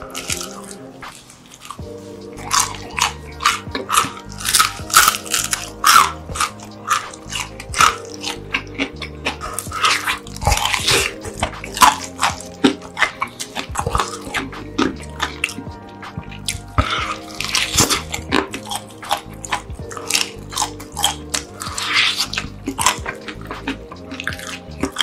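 A person biting, chewing and tearing roast chicken by hand, with many sharp wet smacking clicks, over softer background music.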